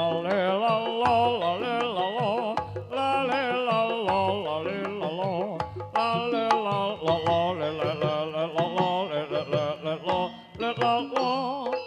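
Live Javanese jaranan ensemble music accompanying a Senterewe dance: a wavering, ornamented melody line over drums and percussion, with short breaks in the melody about three, six and ten seconds in.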